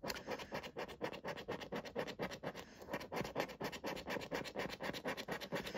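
A coin scraping the latex coating off a paper scratchcard in quick, even back-and-forth strokes, several a second.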